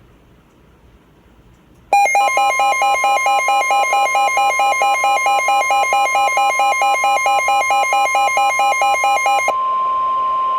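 Weather radio alert tones: a loud electronic alarm warbling between two pitches about four times a second, over the steady 1050 Hz NOAA Weather Radio warning tone. The warble starts about two seconds in and stops about a second before the end, leaving the steady tone alone.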